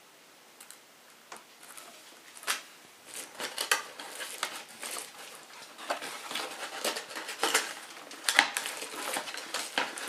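Cardboard box packaging being handled: cardboard inserts and flaps scraping and rustling, with irregular clicks and crinkles as hands rummage inside the box. It starts faintly about a second in and grows busier after about three seconds.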